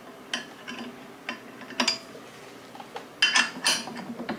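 Metal key clicking and clinking against a build-plate screw of a resin 3D printer as it is fitted and turned to loosen the screw: a few separate sharp clicks, then a quicker cluster of clinks about three seconds in.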